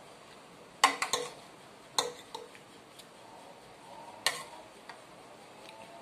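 Metal spoon and fork clinking against dishes while eating: a quick cluster of three clinks about a second in, another at two seconds, and one more just past four seconds, each ringing briefly.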